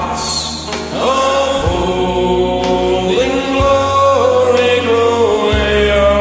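A man singing long, drawn-out notes that change pitch every second or so, over a karaoke backing track.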